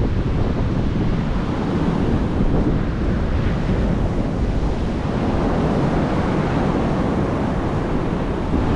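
Ocean surf breaking steadily, with wind gusting and buffeting the microphone in a heavy low rumble.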